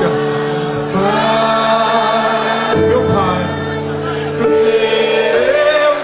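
A man singing a slow gospel song into a microphone, holding long notes over sustained accompaniment chords. The chords change about a second in and again near three seconds.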